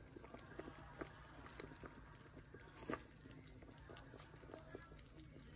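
Thick tomato sauce simmering in a pot, with faint, scattered little pops and bubbles and one louder click about three seconds in.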